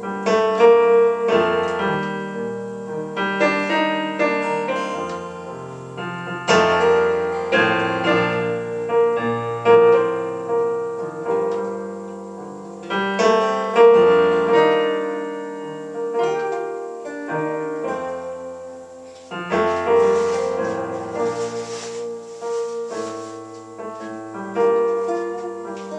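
Piano playing an instrumental passage: chords struck one after another, each note ringing out and fading before the next, with louder strikes every few seconds.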